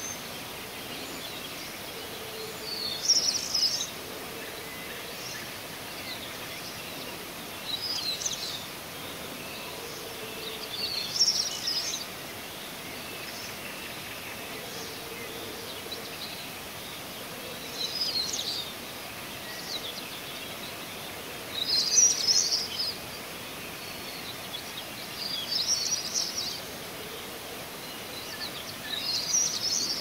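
A songbird singing short bright, high phrases about a second long, repeated every three to four seconds with one longer pause midway, over a steady outdoor hiss.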